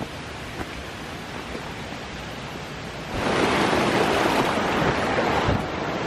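Steady rushing noise with a few faint clicks, becoming much louder about three seconds in.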